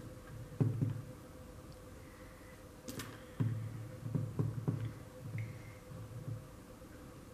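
Handling noises from gluing buttons onto a frame with a hot glue gun: soft low knocks and bumps on the tabletop and one sharp click about three seconds in, over a faint steady hum.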